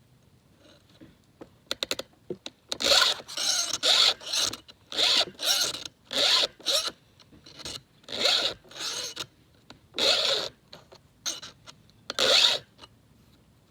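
Round chainsaw file, a 7/32-inch Black Widow, rasping across the cutters of a new Husqvarna X-Cut saw chain in about a dozen short strokes with brief pauses between them. The strokes start a few seconds in and stop near the end, after a few light clicks.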